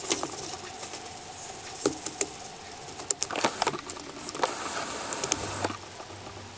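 Scattered soft clicks and rustles as a Pamphobeteus tarantula drags a mouse under its hide through loose coconut-fibre substrate.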